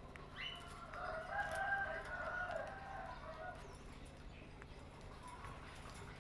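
A single drawn-out bird call lasting about three seconds, opening with a quick rising note, heard faintly.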